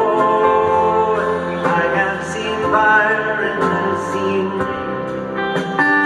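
A slow acoustic ballad played live by a guitar-led band, with sung vocals, recorded in a concert arena.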